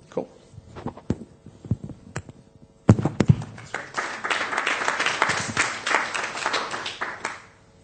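Audience applause for a finished talk. A few scattered knocks come first, then the clapping starts about three seconds in and fades away near the end.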